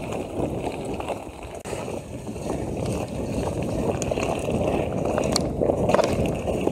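Mountain bike being ridden on a wet trail: a steady rumble of wind and tyre noise on the bike-mounted camera, with a couple of sharp rattling clicks near the end.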